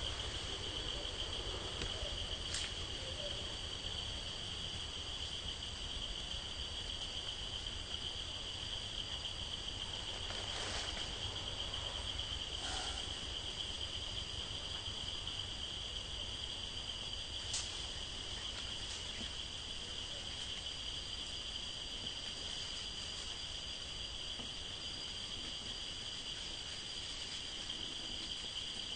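Steady, high-pitched chorus of insects in the forest, holding one unbroken pitch with a fainter higher tone above it, with a few faint clicks scattered through.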